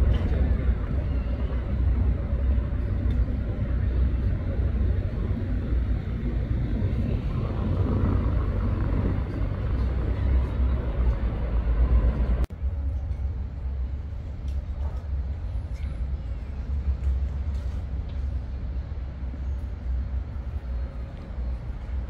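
Outdoor city street noise, mostly road traffic, with a heavy low rumble. About halfway through, the sound cuts abruptly to a somewhat quieter level.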